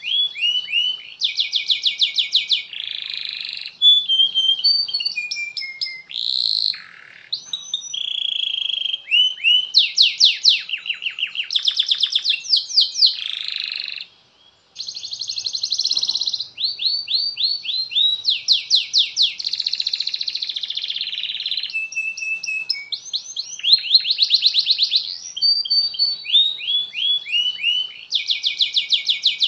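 Domestic canary singing a long, continuous song of rapid rolling trills, runs of quick falling notes and held buzzy phrases, all high-pitched. There is one brief pause about fourteen seconds in.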